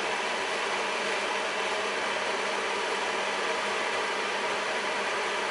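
Steady, even hiss with a faint low hum under it, like a fan running, with no distinct knocks or clicks.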